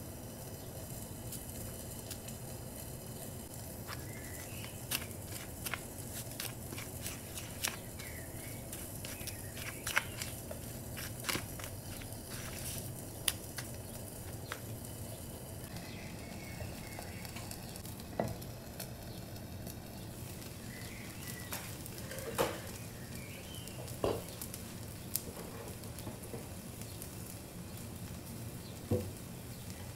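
Steady sizzling of liver kebab skewers cooking on a hot griddle, with scattered sharp clicks and taps.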